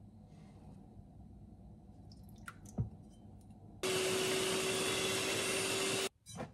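Electric hand mixer switched on about four seconds in, running steadily at one speed with an even motor hum for about two seconds as its beaters whip egg whites in a glass bowl, then switched off, with a brief second burst just after. A few light clicks and a knock come before it.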